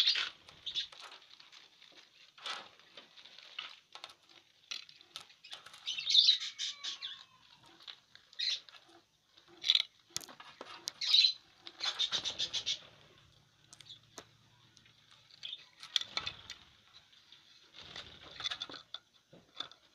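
Lovebirds chirping and chattering in short, high bursts, mixed with the crackling rustle of dry corn husks as the birds pick at and shuffle them for nest material, and a flutter of wings at the start.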